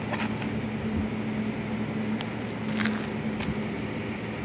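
A few short scrapes of a match struck against the striker strip of a matchbox, over a steady low hum.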